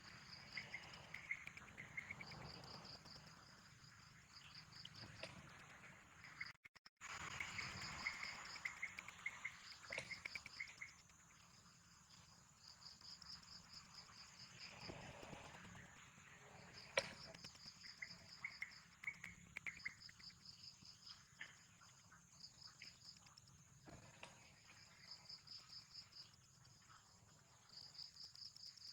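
Insects trilling: a high, pulsing chirp repeats in short runs every second or two, with a lower trill joining at times. The sound cuts out briefly about seven seconds in, and there are a few sharp clicks, the loudest about 17 seconds in.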